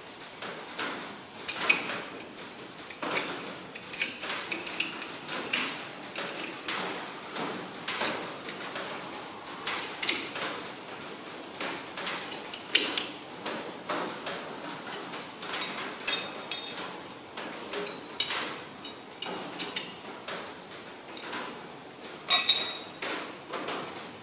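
Metal clinks and taps of head studs and tools being worked into the cast-iron block of a Ferguson TEA20 engine, irregular, about one or two a second. Two short runs of rapid fine clicking come around two-thirds of the way in and near the end.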